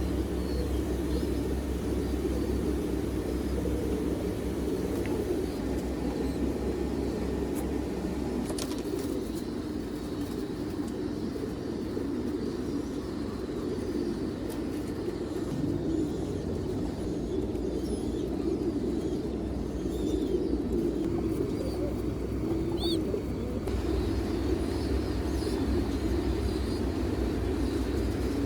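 A flock of pigeons cooing together in a continuous low murmur, over a steady low hum, with a few faint higher bird chirps.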